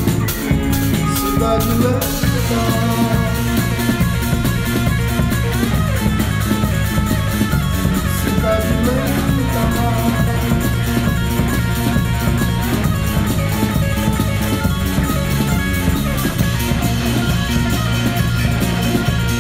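Rock band playing an instrumental passage with no vocals: electric bass, drum kit and electric guitar over a steady beat.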